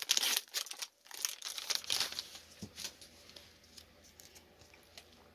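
A foil trading-card pack wrapper being torn open and crinkled in the hands, in quick crackling bursts that die away about two and a half seconds in.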